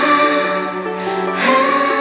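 A slow pop ballad: a solo singer's voice holding long notes over instrumental backing.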